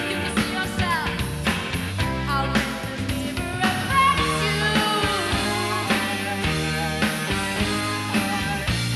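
Live rock music from a stage musical: a band playing with drums and bass while a woman sings.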